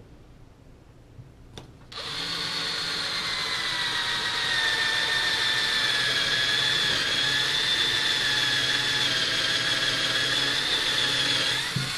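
Cordless drill boring a dowel hole into a wooden rifle stock. The motor starts about two seconds in, runs at a steady whine for about ten seconds, and stops just before the end.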